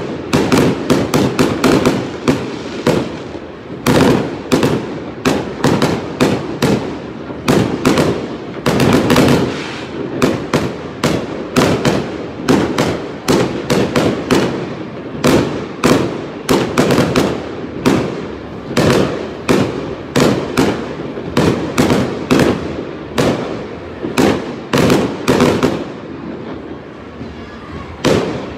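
Fireworks display: a continuous barrage of sharp aerial bangs and crackles, a few a second, easing off slightly near the end.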